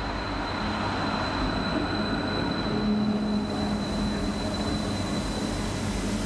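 Variobahn light-rail tram pulling in alongside the platform: electric drive hum and wheels rolling on the rails, with a high steady whine that fades out about three and a half seconds in.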